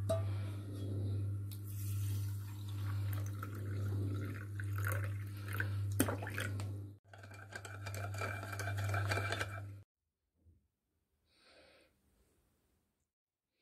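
Water poured from a steel vessel into a bowl, splashing, over a steady low hum that swells about once a second. Both stop abruptly about ten seconds in, leaving near silence.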